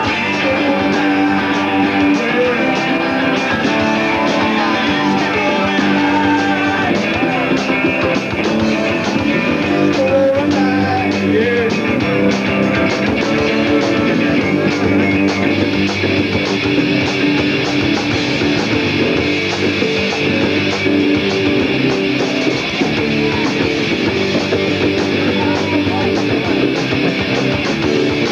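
Live rock band playing: electric guitars, bass and drum kit.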